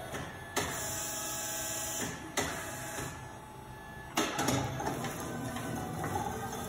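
Electric motor of a Cat stand-up electric forklift whirring in bursts that start abruptly a little after half a second in, again near two and a half seconds and again about four seconds in.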